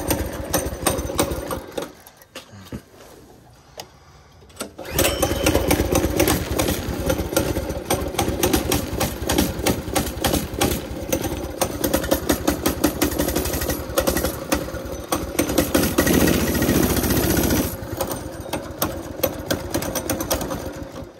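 Small single-cylinder engine of a Baja Warrior minibike running on a cold start. It nearly dies about two seconds in, picks back up about five seconds in, then runs on and falls off sharply near the end. The owner puts the unsteady running down to a cold engine and a carburetor that needs cleaning after long sitting.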